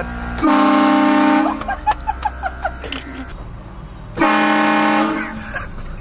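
Train horn, an air horn, blasting twice. Each blast is about a second long and sounds several steady tones at once. Short voices are heard between the blasts.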